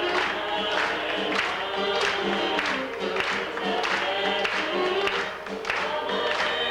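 Nine-voice vocal group singing a gospel song in harmony.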